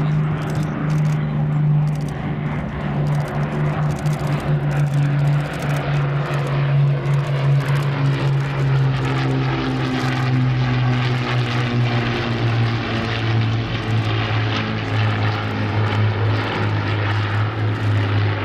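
Avro Lancaster and de Havilland Mosquito flying past in formation, their six Rolls-Royce Merlin V12 engines droning together. The engine note falls slowly in pitch as they pass.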